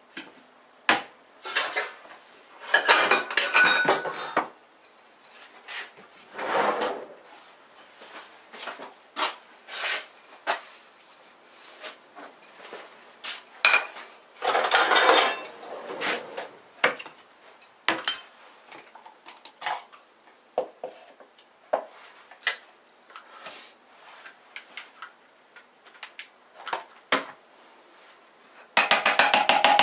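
Kitchen clatter of a plate and utensils on the countertop: a plate set down and a stick blender's blending shaft taken off and knocked against the plate to shake off thick mayonnaise. Scattered sharp knocks and rattles, with louder bursts of clattering a few seconds in, about halfway and near the end.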